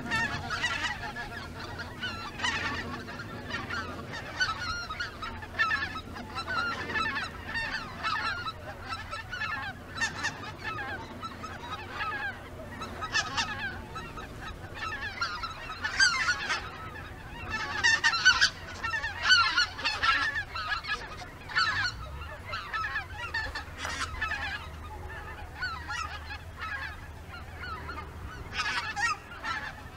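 A flock of greater white-fronted geese calling in flight: many overlapping calls, busier and louder about halfway through.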